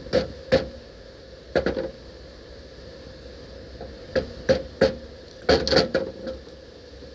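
Sharp metallic clanks and taps in irregular clusters, each with a short ring, as steel hydraulic cylinder parts are handled and knocked on a diamond-plate steel deck during a stabilizer cylinder rebuild.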